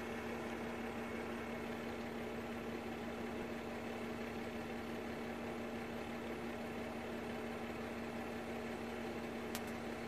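Steady mechanical hum with one strong low tone, unchanging throughout. A faint tick near the end.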